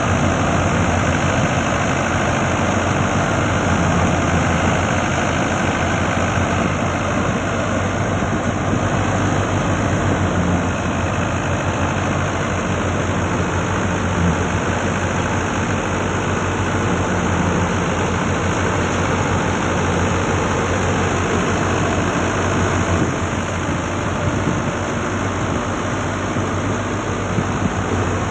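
Fiat 640 tractor's four-cylinder diesel engine running steadily under load, belt-driving a wheat thresher, with the thresher adding a steady rushing noise as wheat is fed in.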